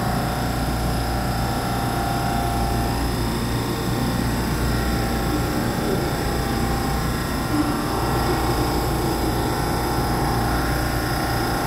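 Steady, unchanging hum from a standing EMU3000 electric multiple unit at an underground station platform, its on-board equipment running with several steady tones over a low drone.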